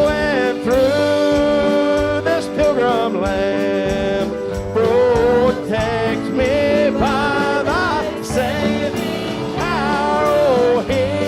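Live country gospel music from a church band: a melody line that slides and wavers in pitch over steady held chords.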